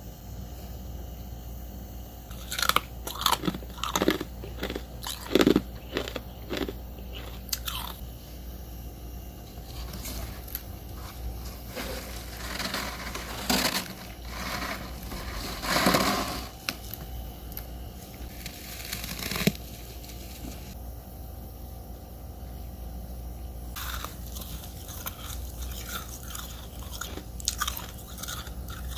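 Biting and chewing crunchy freezer frost, in irregular crisp crunches that come in clusters, with a steady low hum underneath.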